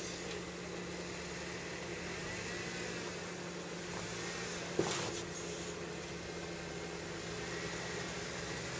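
Jeep Wrangler JKU's V6 engine running steadily at low revs as the Jeep crawls slowly over a rock ledge, with a single knock about five seconds in.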